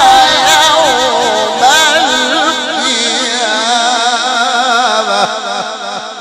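Male Quran reciter chanting in the melodic mujawwad style through a microphone and PA: one long, drawn-out phrase with wavering, ornamented pitch. The voice fades out near the end, leaving a trailing echo.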